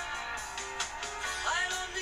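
Background music playing, with held notes.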